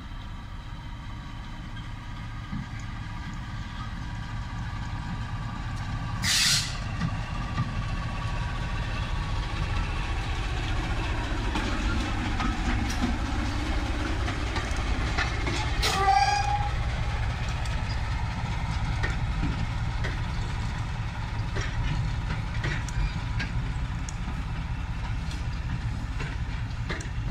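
A British Rail Class 14 'Teddy Bear' diesel-hydraulic locomotive (D9516), with its Paxman Ventura engine, runs steadily as it hauls coaches past. The engine grows louder as the locomotive draws level, about halfway through, with a brief burst of noise about a quarter of the way in. The coaches' wheels then click over the rail joints as they roll by.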